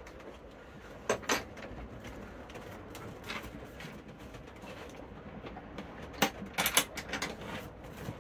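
Clunks and knocks from a fibreglass cockpit locker lid being lifted open and handled: two sharp knocks about a second in and a quick cluster of them a little past halfway, over a steady low background.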